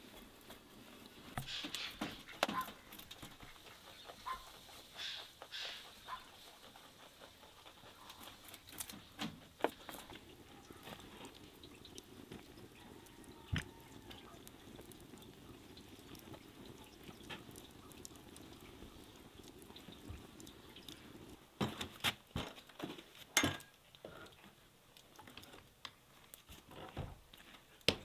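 Quiet handling sounds: cloth rustling as a towel and a heavier cloth are laid over a glass bowl of dough, with scattered light taps and clicks on the table, a few sharper ones about two-thirds of the way through.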